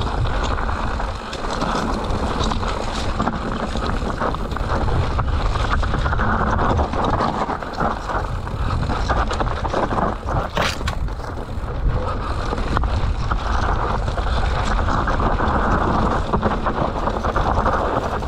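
Mountain bike descending a rough trail at speed: wind rushing over the microphone with a steady low rumble from the tyres, and the bike rattling and knocking over rocks and roots, with one sharper knock about ten seconds in.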